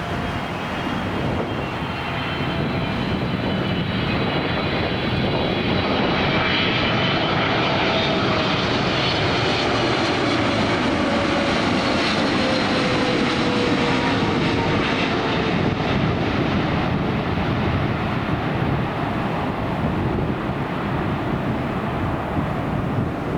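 Jet airliner on final approach passing close by, its engine noise building to a peak about halfway through and then easing off, with a whine that falls in pitch as it goes past.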